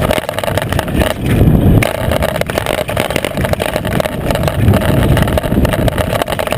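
Mountain bike descending a loose gravel trail at speed: continuous rumble and clatter of the knobby rear tyre on stones and the bike shaking, with wind rushing past. A louder low rush comes about a second in.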